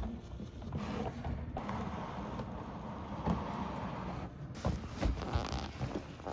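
Vacuum cleaner running steadily, with a few knocks and clicks.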